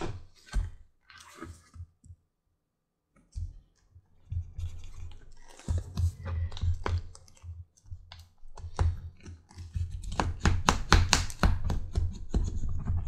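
Leather holster edge being rubbed back and forth with a hand burnishing tool after dyeing. It makes quick scratchy strokes, a few scattered at first, then dense and rapid through the second half.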